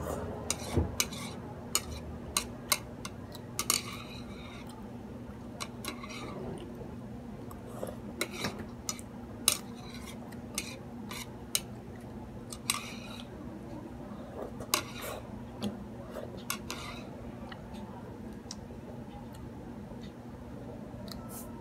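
Metal chopsticks clicking and scraping against a ceramic plate while picking up noodles, with irregular sharp clicks that thin out after about seventeen seconds. A low steady hum runs beneath.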